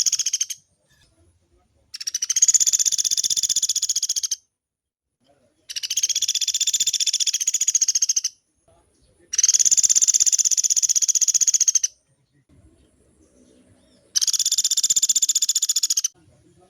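Woodpecker giving long, fast rattling calls, each a rapid high-pitched roll of notes lasting about two and a half seconds. Four full calls follow the end of a previous one, with short silent gaps between them.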